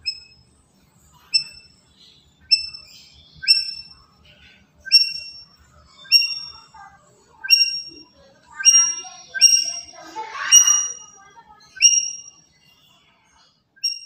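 Black-capped lory calling: a string of short, sharp, repeated calls at a steady pace of about one a second, with a harsher, noisier call near the middle.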